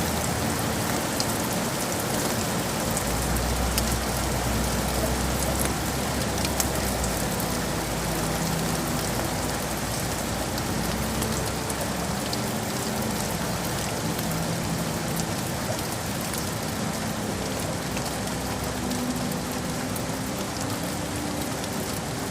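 Steady heavy rain falling, with scattered drop clicks on hard surfaces, and a low rumble for a few seconds starting about three seconds in.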